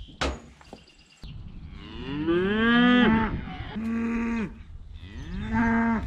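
Dexter cattle mooing: three long calls in quick succession, the first rising into a held note and the next two held at a steady pitch. The herd is calling because, in the farmer's reading, it knows a move to fresh grass is coming.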